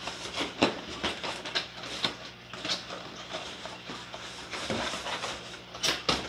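Cardboard boxes being handled and shifted against each other: scraping, rustling and small knocks, with two louder knocks just before the end. A steady low hum runs underneath.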